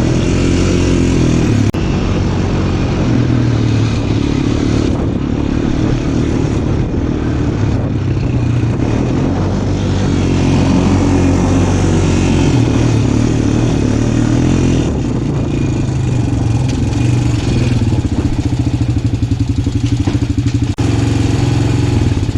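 A small off-road vehicle's engine running and revving up and down while riding over bouncy ground, with scattered knocks. In the last few seconds the revs fall to a slower, even putter.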